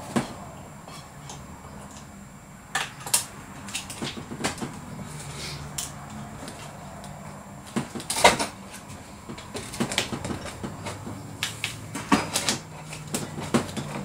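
Irregular clicks and knocks of hands and a small tool working at an airsoft M4 rifle's stock to get it off, the loudest knock about eight seconds in and a quicker run of clicks near the end.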